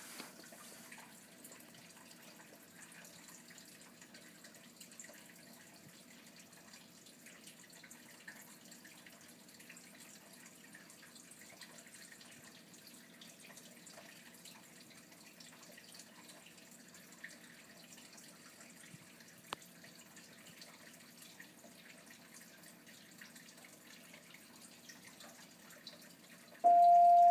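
Steady low room background noise with a faint constant tone running under it. Near the end a single loud, steady electronic beep sounds for about half a second.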